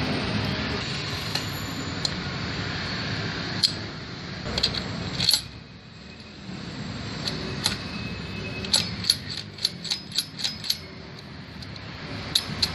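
Steel gearbox shafts and gears of a Yamaha Gladiator motorcycle engine clinking against each other and the open crankcase as they are fitted in by hand: scattered sharp metallic clicks, with a quick run of them about three quarters of the way through, over background noise that fades about halfway.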